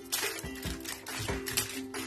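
Background music with a steady beat and sustained mid-pitched tones.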